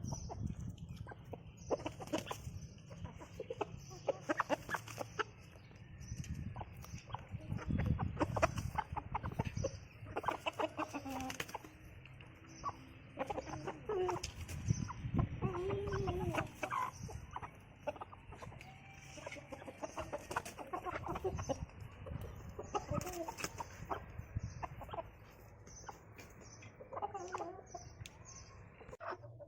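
Aseel chickens clucking on and off, with scattered short taps and knocks among the calls.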